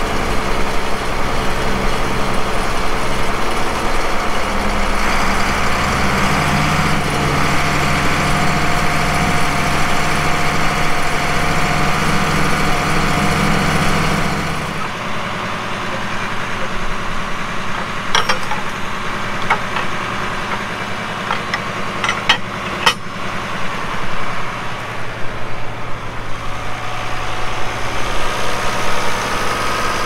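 International Harvester tractor's diesel engine running, its speed stepping up about six seconds in. About halfway the sound drops to a quieter engine idle with a few sharp metallic clicks.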